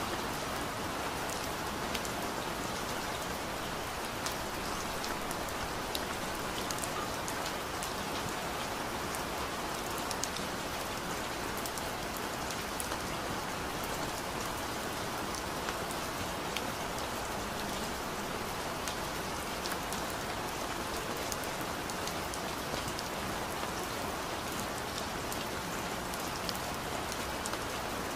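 Steady rain: an even hiss with many small drop ticks scattered through it.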